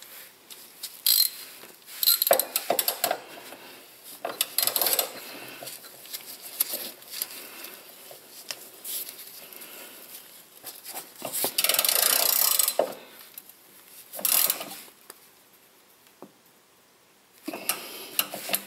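A hand ratchet with a 10 mm socket clicking in short runs as it turns the fuel filter bracket bolt, with scraping and handling of metal parts. A longer, louder run of noise comes about twelve seconds in.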